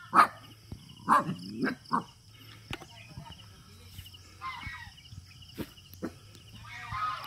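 Several short animal calls, the loudest in the first two seconds and more near the middle and end, over a steady high-pitched pulsing drone.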